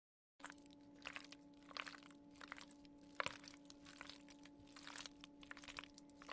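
Steel ladle stirring fusilli in a pot of boiling water: irregular clicks and scrapes of metal against the aluminium pot, the sharpest about halfway through, over a steady low hum.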